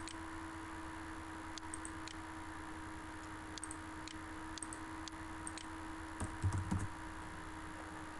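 Scattered clicks of a computer mouse and keyboard, a dozen or so at uneven intervals, over a steady electrical hum and hiss, with one brief low sound about six and a half seconds in.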